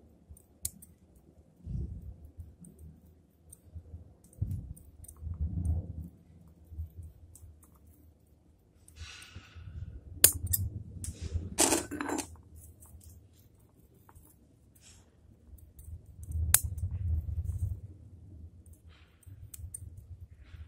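Close-up handling noise from hands and small tools working on a little zelkova bonsai: soft knocks and a brief rustle, with scattered sharp metallic clicks, the loudest about ten and twelve seconds in and again near seventeen seconds.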